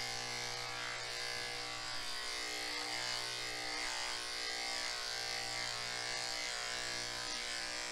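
Cordless electric dog-grooming clipper running with a steady buzz as it clips the coat on a dog's rear leg.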